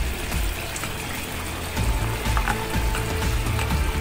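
Background music over thick cream being poured from a container into a pan of cooked chicken, with a few light clicks in the second half.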